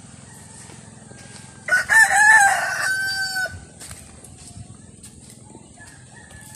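A rooster crows once, starting about two seconds in, its call ending on a long held note.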